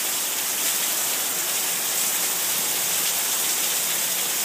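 Heavy rain coming straight down in a steady downpour, an even hiss that holds level throughout.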